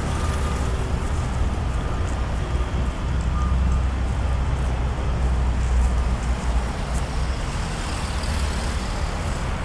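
Road traffic on a city avenue: a steady low rumble of passing vehicles that swells in the middle.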